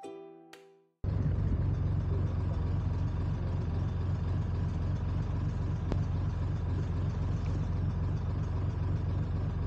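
Boat engine running steadily, a constant low drone, starting abruptly about a second in after the last notes of a chiming music jingle fade out.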